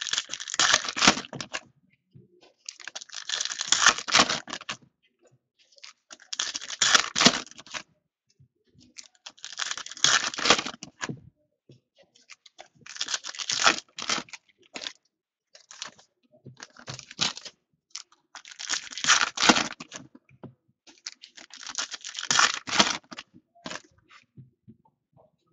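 Football trading-card packs being torn open and the cards handled by hand: about eight bursts of tearing and crinkling, one every three seconds or so.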